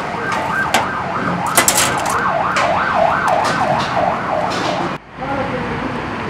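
An electronic emergency siren wails up and down, switches to a fast yelp about two and a half seconds in, then cuts off suddenly near five seconds. A few sharp clicks sound over it.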